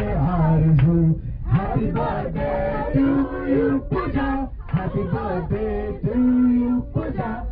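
Singing, led by a man's voice, holding long notes of a melody with short breaks between phrases.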